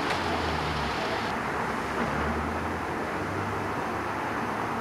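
Steady drone of a police helicopter's engine and rotors, a low hum that swells and eases slightly, with a hiss over it.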